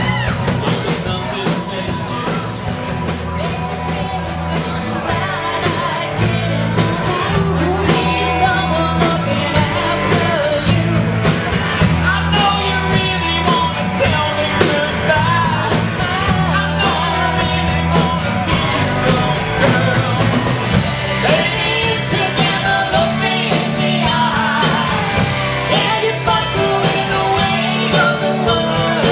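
A live rock band playing: a lead vocal sings over electric guitar, bass guitar and a steady drum beat.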